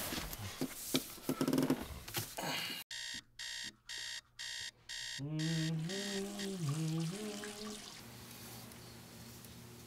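Digital alarm clock beeping: about four quick electronic beeps in two seconds, a few seconds in, after some clicks and rustling. Then a low wavering tone for about three seconds.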